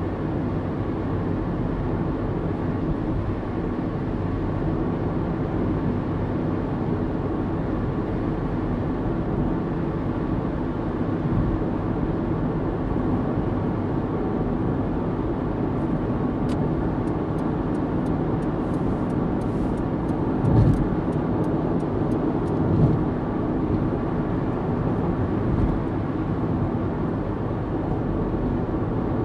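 Steady in-cabin road noise of a car cruising at about 60 mph on a motorway: tyre roar and engine hum. A couple of brief thumps come about two-thirds of the way through.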